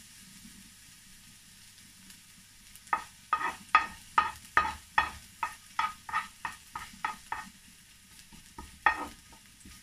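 Spatula scraping and knocking against a nonstick wok while stirring garlic in a little hot oil. A quick run of strokes, about three a second, each with a brief ring from the pan, starts about three seconds in and stops past halfway, with one more near the end, over a faint sizzle of frying.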